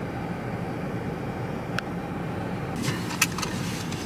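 Steady low rumble of a car in motion, with a few light clicks about two and three seconds in.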